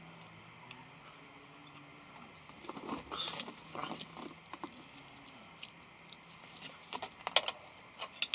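Metal parts and hand tools clinking and clicking as the wet clutch is fitted onto its shaft spline. Quiet at first, then a run of sharp irregular clicks from about three seconds in.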